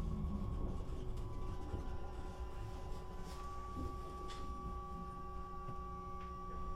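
Bombardier/Alstom class 422 S-Bahn electric multiple unit standing still, heard from inside the car, its traction drive quiet. A steady electrical hum carries several high steady tones from the on-board electrical equipment, one of which steps higher partway through, with a few faint clicks.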